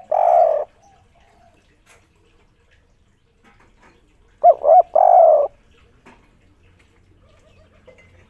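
Spotted dove cooing its three-note 'kuk 3' song of two short notes followed by a longer one. The end of one phrase falls at the very start, and a full phrase comes about four and a half seconds in.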